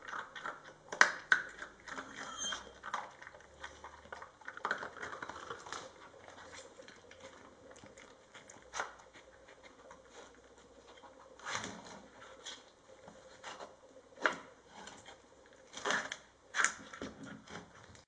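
Jack Russell terrier nosing and pawing at a wooden slide-the-disc treat puzzle: irregular clicks and knocks of the wooden discs, a few louder ones in the second half.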